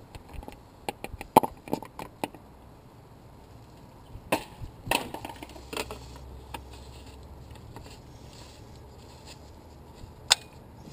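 Handling clicks and knocks of plastic parts as an oil funnel is pulled from the engine's oil fill neck and the oil filler cap is put back on. A quick run of small clicks comes in the first two seconds, a few sharper knocks follow around four to six seconds in, and there is one sharp click near the end.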